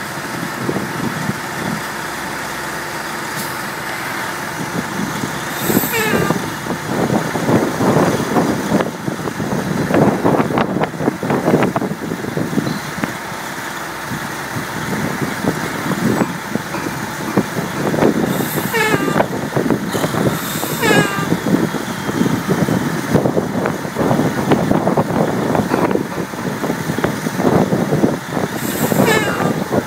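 Heavy oilfield machinery running steadily, with irregular clanks and knocks. There are four short high-pitched squeals or hisses: one about six seconds in, two close together past the middle, and one near the end.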